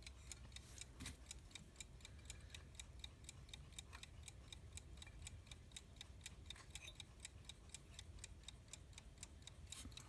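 Faint, quick, even ticking of a vintage US Time (Waterbury) alarm clock movement running.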